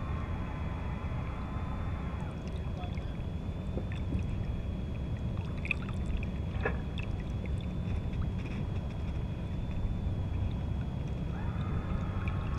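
Steady low rumble of wind on the microphone over water lapping and gurgling against the hull of a small boat. Faint tones come and go near the start and again near the end.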